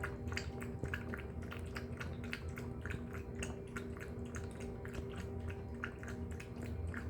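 Pomeranian eating from its bowl: quick, irregular wet clicks and smacks of mouth and tongue, a few each second, over steady held background tones.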